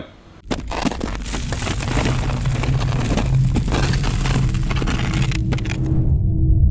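Cinematic sound effects for an animated channel logo intro: dense crackling and breaking-debris noise over a low rumble that builds. Near the end the crackle cuts off, leaving a low hum with a steady drone.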